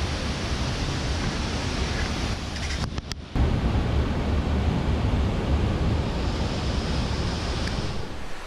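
Steady rush of a waterfall pouring into its pool, with wind rumbling on the microphone; the sound drops out for a moment about three seconds in, then picks up again.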